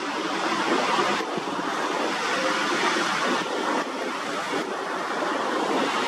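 Surf washing onto a beach: a steady rush of small breaking waves and foam running up the sand.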